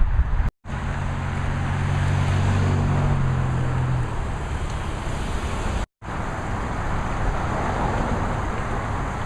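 Steady road traffic noise, with a motor vehicle's engine hum over the first few seconds. The sound drops out abruptly about half a second in and again near six seconds.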